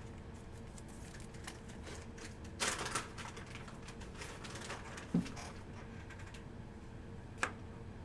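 Faint handling of a trading card and a clear plastic top loader: light plastic clicks and rustles, a short scrape about three seconds in, a soft knock about five seconds in and a sharp click near the end, over a faint steady hum.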